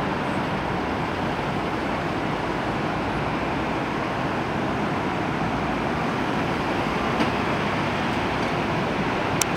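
Steady street traffic noise as a vintage Tatra T2 tram pair rolls slowly in along the rails, with a few sharp clicks near the end.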